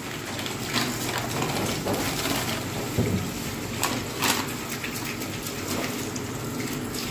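Thin plastic packet crinkling and rustling as it is handled, a run of sharp crackles over a steady hiss.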